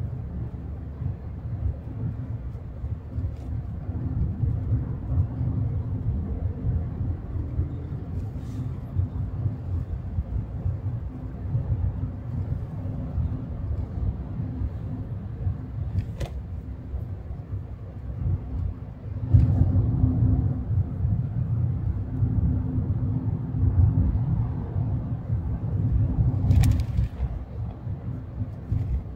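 Car cabin noise while driving: a steady low rumble of engine and tyres with a faint hum, stepping up suddenly in loudness about two-thirds of the way through. A few isolated sharp clicks.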